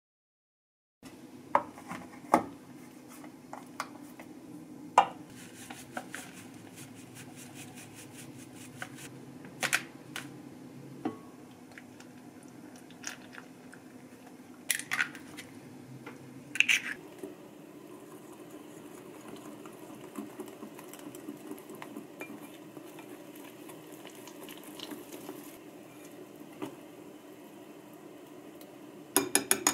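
Utensils and ingredients clinking and knocking against a glass mixing bowl as hotcake mix is measured out and stirred into batter. There is a sharp knock every few seconds over a low steady hum, and a quick run of ticks near the end.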